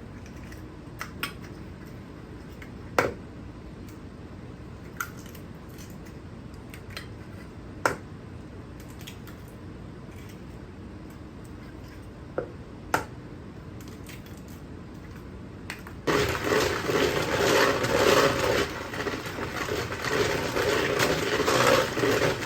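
Eggs knocked against a bowl and cracked open, with sharp single knocks every few seconds. About sixteen seconds in, an electric mixer starts suddenly and runs steadily, beating the eggs into the cream cheese and sugar.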